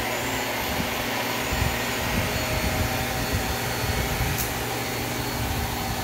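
Hart Pro bagless upright vacuum cleaner running on carpet with its brush roll spinning: a steady rush of air with a steady motor hum.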